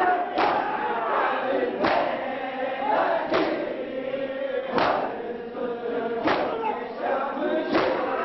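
Crowd of men chanting a mourning noha in unison, with loud collective chest-beating (matam) strikes landing together about every one and a half seconds.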